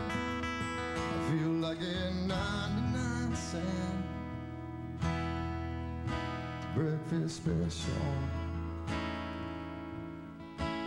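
Live band music: acoustic guitar picked and strummed through an instrumental break in the song, with sustained low notes underneath.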